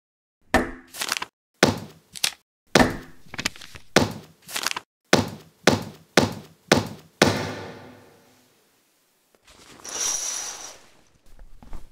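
More than a dozen heavy thuds and knocks at uneven intervals, the last one ringing out for about a second. A short scraping, hissing sound with a thin high tone follows about ten seconds in.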